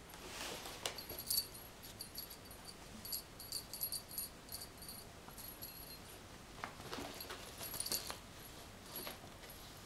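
A small jingle bell on a cat's wand toy tinkling in short, irregular clusters as the toy is swished and batted about, with soft rustles of the kitten pouncing on the rug.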